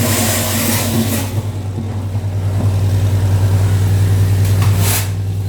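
Truck engine running steadily at constant speed, with a hiss through roughly the first second and another short hiss near the end.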